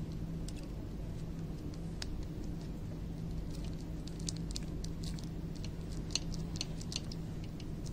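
Scattered light clicks and taps of small objects being handled, more frequent in the second half, over a steady low hum.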